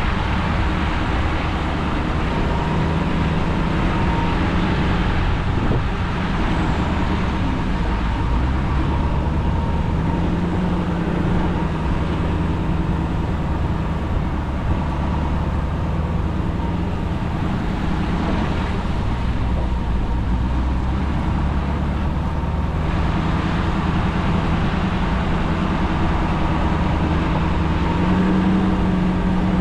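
Pickup truck running and driving, with steady engine and road noise; the engine pitch rises and falls a few times.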